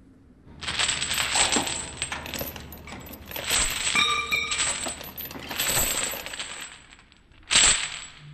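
Metal rattling and jingling for several seconds, with a ringing metallic ping about four seconds in, then a sharp metal clank near the end.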